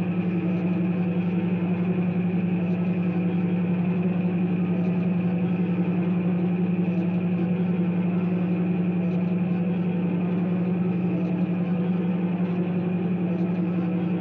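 Live experimental electronic music: a steady, dense low drone held throughout, with a grainy, buzzing texture layered above it.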